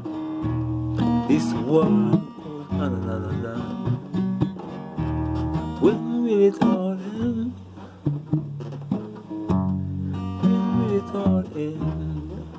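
Acoustic guitar strumming chords, the chord changing every second or two.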